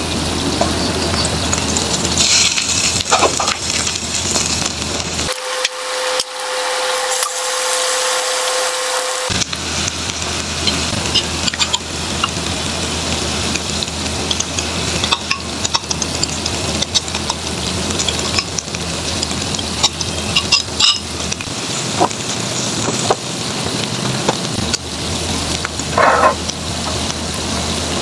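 Food frying in oil in a pan, a steady sizzle with scattered clicks and scrapes from a utensil stirring or turning it. For a few seconds about five seconds in, the sizzle thins and a faint steady tone sounds under it.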